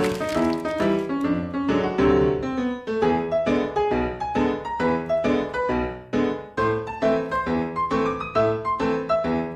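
Background keyboard music, a tune of quick, evenly spaced piano-like notes.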